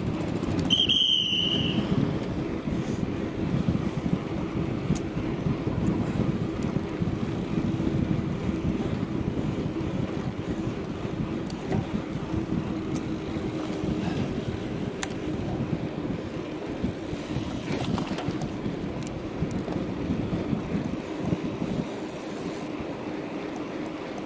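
Wind rushing over the microphone with bicycle tyres running on asphalt at speed: a steady, noisy rush. A brief high tone sounds about a second in.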